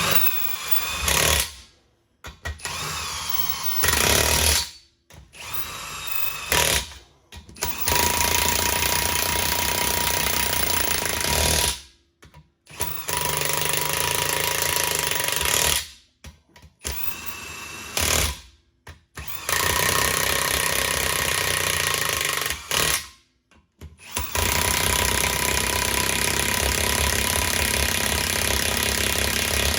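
Impact wrench running in repeated bursts of one to several seconds with short pauses between, tightening the nuts that clamp the two halves of a Humvee 24-bolt split wheel in a cross pattern.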